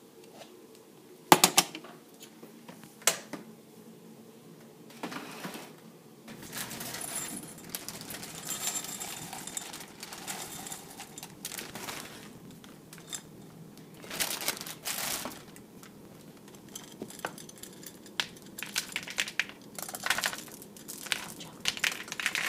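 Kitchen handling sounds: irregular sharp clicks and knocks of a glass measuring cup and utensils against a plastic mixing bowl, with the rustle of a packet being handled. Near the end, chocolate chips are poured from the glass measuring cup into the bowl.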